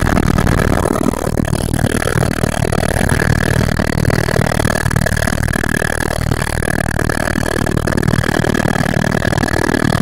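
Helicopter engine and rotor running, heard from inside the cabin: a steady high whine over a low rumble as the helicopter lifts off the pad.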